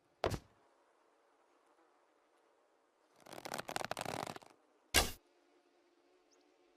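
Manchu bow being shot: a sharp snap of the released string about a quarter second in, a rustling, scraping stretch as the next arrow is handled and drawn, then a louder string snap about five seconds in.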